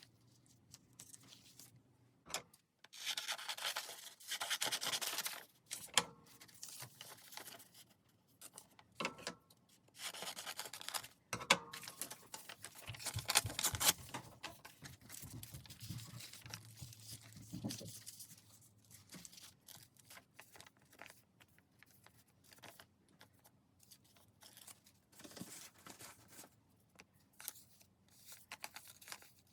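Paper being handled for a junk journal: irregular bouts of rubbing and tearing, loudest a few seconds in and again around ten to fourteen seconds in.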